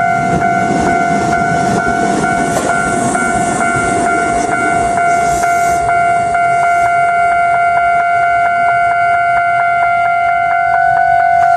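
Japanese railway level-crossing alarm ringing without pause, a steady tone struck about three times a second, on a crossing whose signals were put out of order by a lightning strike. Under it, a train's low rumble fades out around the middle.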